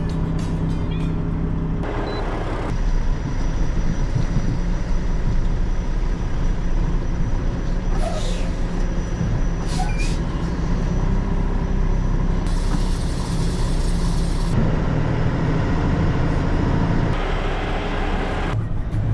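Semi truck's diesel engine running steadily, with a hiss of air lasting about two seconds past the middle.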